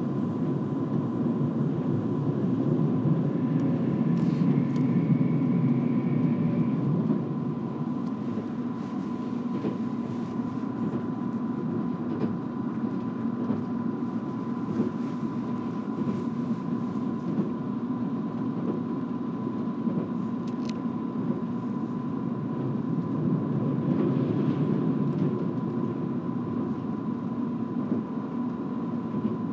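Running noise inside a JR Kyushu 787 series limited express car under way: a steady rumble from the wheels and running gear, with a thin steady high tone throughout. A brief rising whine comes in a few seconds in.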